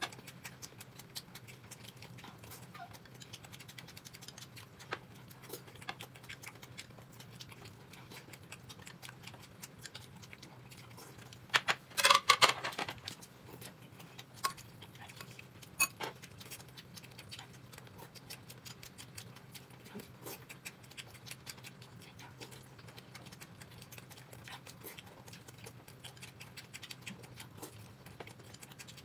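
Close-miked eating sounds: a person chewing dumplings, a steady run of small wet clicks and smacks over a faint hum, with a louder burst about twelve seconds in.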